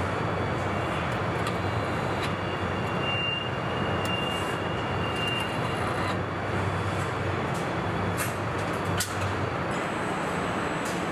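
Car assembly plant floor noise: a steady machinery din with a low hum, scattered sharp clicks and clanks, and a thin high tone for a couple of seconds about three seconds in.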